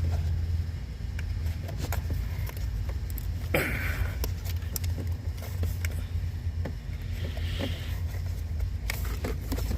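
Steady low hum of a running vehicle, with scattered light clicks and a short scrape as plastic connector clips on a purge valve are pressed and pulled by hand.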